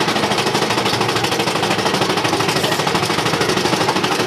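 Big Thunder Mountain Railroad mine-train roller coaster running along the track, a loud, fast, steady rattle heard from a seat on the moving train.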